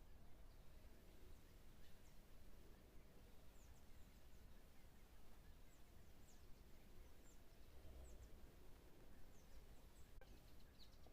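Faint bird chirps, short high falling notes scattered about once a second, over a low steady outdoor background rumble.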